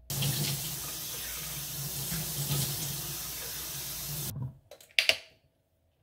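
Bathroom sink tap running, with water splashing as a face is washed over the basin. The water stops suddenly about four seconds in, and a couple of short sharp knocks follow.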